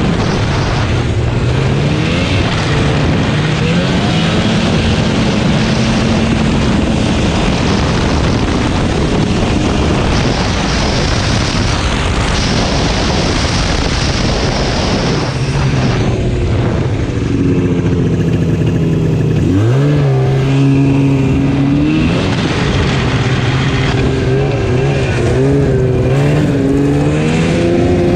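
Two-stroke snowmobile engine running at speed, its pitch rising and falling as the throttle is worked, with a sharp rev about twenty seconds in and a wavering pitch near the end, over a steady rush of noise.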